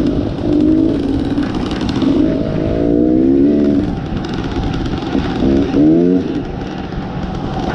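Dirt bike engine running under way on a trail, revving up twice with a climbing pitch, about two and a half seconds in and again near six seconds.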